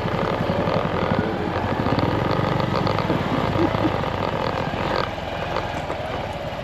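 Small single-cylinder 125 cc minibike engine, Honda Monkey type, running as the bike rides slowly. The engine note drops back a little about five seconds in.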